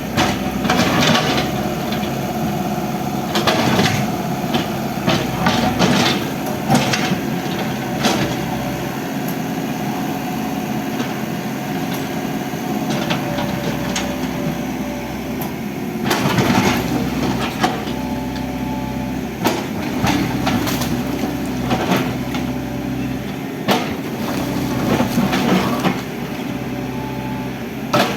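Excavator's diesel engine running steadily under load, with irregular cracks, crunches and thuds of a building's walls and structure breaking apart under the machine.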